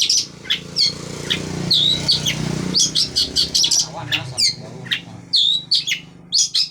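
Long-tailed shrike (cendet) singing: quick runs of sharp, high chattering notes, some with short swooping whistles, in bursts with brief gaps.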